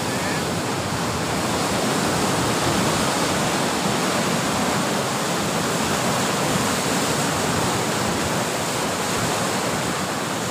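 Sea surf breaking and washing over a rocky shore: a steady, loud rushing noise with no break.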